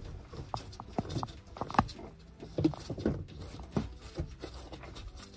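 Irregular clicks and light knocks, a few a second, of a water supply line being threaded by hand onto the fitting of a Thetford RV toilet.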